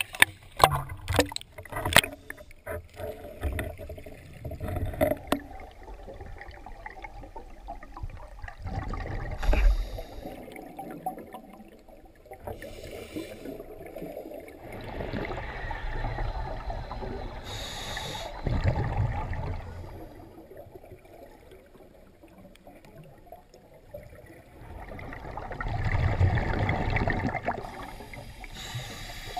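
Water splashing and sloshing around the camera housing at the lake surface for the first few seconds, then muffled underwater sound of scuba diving: bubbles rushing and the regulator hissing in swells that come and go every several seconds.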